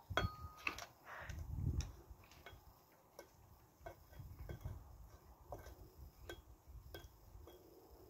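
Wire whisk clicking and scraping against a stainless-steel mixing bowl as a mixture is stirred: light, irregular ticks a few times a second, with a louder ringing metal clink at the start.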